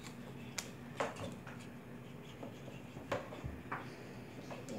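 A few scattered light clicks and taps of bowls and utensils being handled while making slime.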